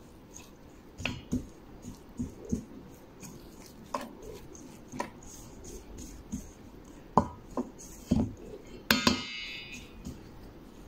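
Metal spoon stirring flour and wet dough ingredients in a metal mixing bowl: irregular scrapes and clinks against the bowl, with one louder ringing clink about nine seconds in.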